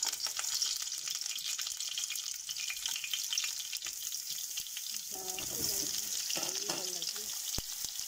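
Chicken seekh kebabs sizzling and crackling as they fry in hot oil in a non-stick frying pan.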